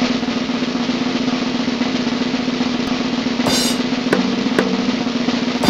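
Drum roll sound effect: a rapid, continuous roll on a drum held for several seconds, with a brief brighter accent about three and a half seconds in.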